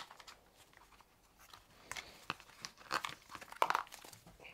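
Faint rustling, scuffing and light clicks of a rubber half-face respirator mask and its elastic straps being handled and pulled on, with a few louder handling noises near the end.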